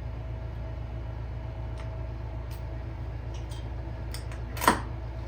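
Steady low electrical hum with a faint steady tone, broken by a few small handling clicks and one sharper click near the end.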